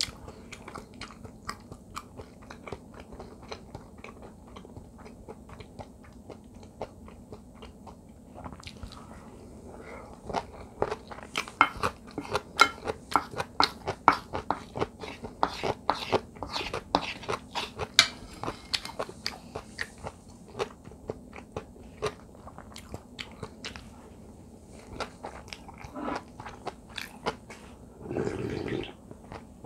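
Close-miked chewing and crunching of radish kimchi fried rice, many small crunches packed closest together midway. Near the end, a second-long sip of soup from a glass bowl.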